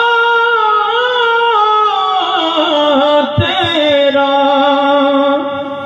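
A man's voice singing a naat without instruments, holding one long drawn-out melismatic vowel that glides slowly down in pitch and fades near the end.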